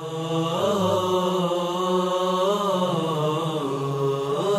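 A solo voice chanting in long held notes, ornamented with melismatic turns, as a religious vocal outro.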